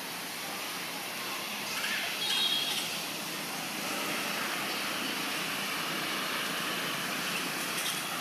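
Steady outdoor background noise with no clear single source, a little louder from about two seconds in, with a brief higher-pitched sound between two and three seconds in.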